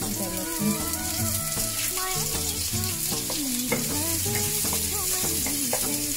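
Chopped onion, ginger and garlic sizzling in hot oil in a pan as a wooden spatula stirs them, under background music.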